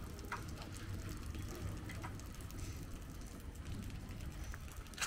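Quiet outdoor background noise with a low steady rumble, a few brief high chirps or squeaks, and a sharp click at the very end.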